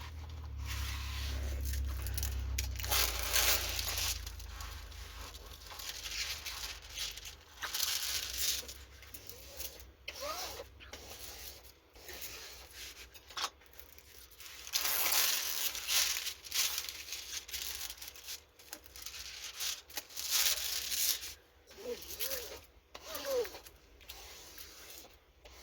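Plastic packaging of a diamond painting kit being torn open and crinkled, in irregular rustling bursts with several louder stretches.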